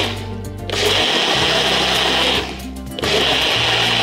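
Jar blender blending a liquid in pulses: it stops right at the start, starts again under a second in, stops for about half a second in the middle, then runs again.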